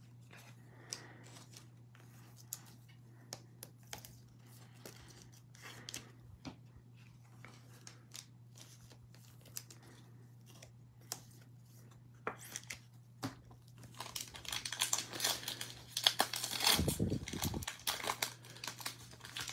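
A few soft scattered taps, then, from about two-thirds of the way in, loud crinkling and tearing of a foil trading-card pack wrapper being ripped open by hand.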